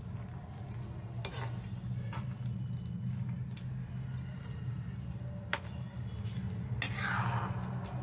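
A spatula stirring shrimp in bubbling tomato-butter sauce in a pan, with a few sharp knocks and scrapes against the pan, over a steady low hum.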